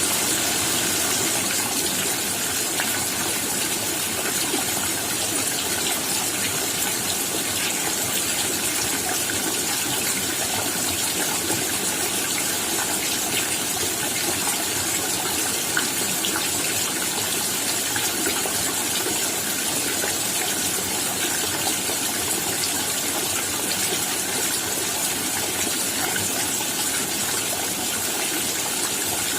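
Steady rain falling, an even hiss of drops with faint scattered ticks.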